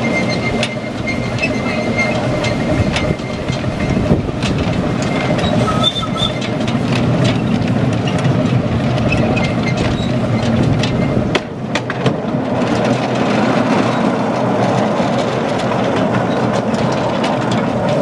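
Miniature ride-on railway train running along the track: a steady rumble of wheels on rail, with irregular clicks as they pass over rail joints.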